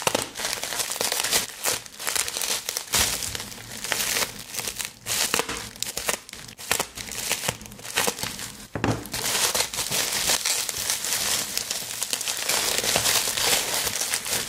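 Packing material crinkling, crackling and tearing as a courier parcel is unwrapped by hand, busiest in the second half.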